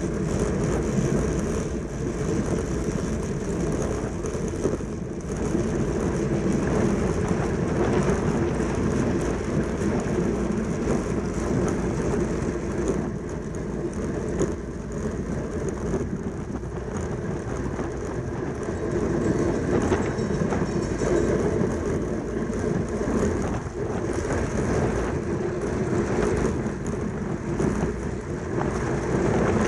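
Steady rushing wind and low rolling rumble from a track bicycle ridden at racing speed in a points race.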